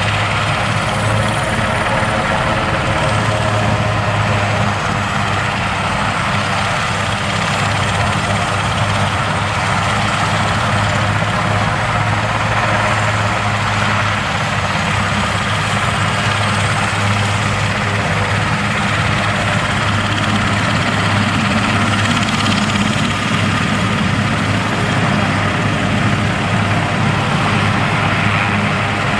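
Super Puma military helicopter running on the ground with its main rotor turning, a steady low hum under a faint high turbine whine.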